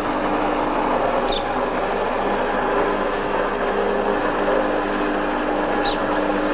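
Electric hoist on an overhead gantry running with a steady hum as it carries a boat hanging in lifting straps. A few short, high squeaks sound over it.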